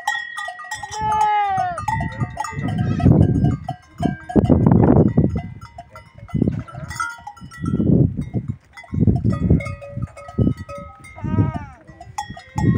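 Goats and kids bleating in a pen, with bells among the herd clanking. Loud bursts of deep, rough rumbling noise come and go through the middle.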